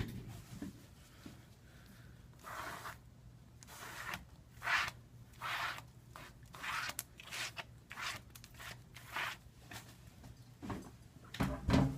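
Hand work on a tablet at a repair bench: a run of about a dozen short scraping and rustling strokes at an irregular pace.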